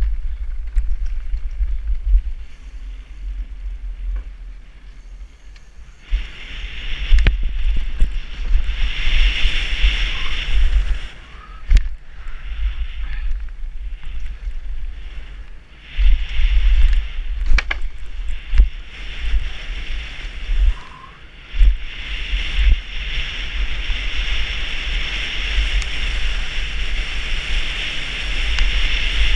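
Downhill mountain bike descending a dirt and gravel trail: wind buffeting the helmet-mounted microphone, the tyres hissing over loose gravel and the bike rattling, with several sharp knocks over bumps. The tyre hiss comes in strongly about six seconds in, drops away in places and builds again towards the end.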